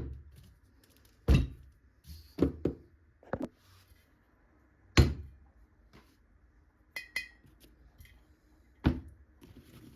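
Irregular hard wooden knocks and thunks, about seven over ten seconds, like wooden pieces being set down or knocked together on a work surface. About seven seconds in there is a brighter double clink with a short ring.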